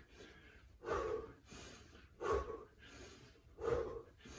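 A man breathing hard through a squat-jump set, with three forceful breaths out about a second and a half apart, one with each jump.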